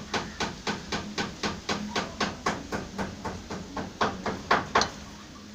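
Rapid, evenly spaced clicking, about four or five clicks a second, with a few louder clicks near the end before it stops.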